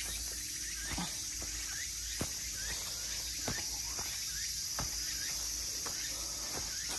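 Footsteps of a hiker walking down a dirt hill trail, one step about every second, under a steady high-pitched chorus of insects singing.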